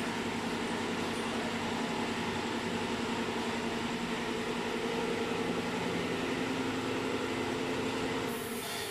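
Steady machine hum with a low drone and a higher held tone over an even hiss; it drops a little and changes character just before the end.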